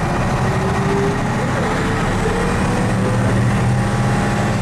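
Diesel engine and drivetrain of a 1976 FBW bus running steadily under way, heard from inside the bus near the front, with a thin whine that rises slowly in pitch.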